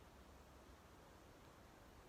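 Near silence: a faint, even hiss with a low rumble underneath, steady throughout.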